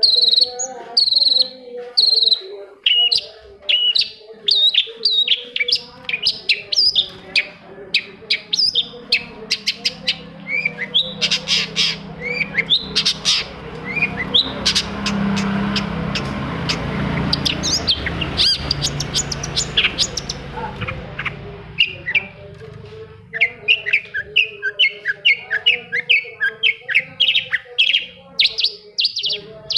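Long-tailed shrike (cendet) singing in quick series of short, sharp chirping notes. A rushing background noise swells in the middle and fades out again before the chirping series pick up.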